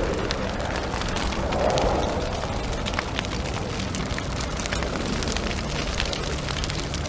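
Steady crackling noise with many scattered small clicks and pops, and no voice.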